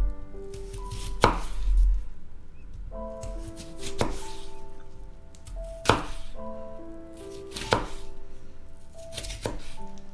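Chef's knife slicing raw potato into thin sticks on a wooden cutting board: five slow, separate cuts, each ending in a sharp knock of the blade on the board, about one every two seconds.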